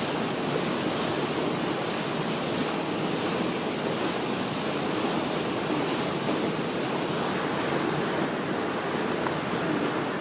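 Steady rushing roar of a large waterfall, mixed with wind buffeting the microphone.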